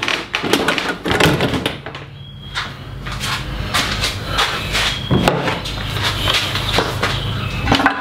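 Repeated knocks and clunks as a heavy Honda walk-behind lawn mower is lifted and set down into a steel frame on a plywood bench, over a steady low hum.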